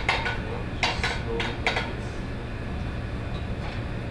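Metal kitchenware clattering against the sauté pan and stove: about five sharp knocks in the first two seconds, then only a steady low hum.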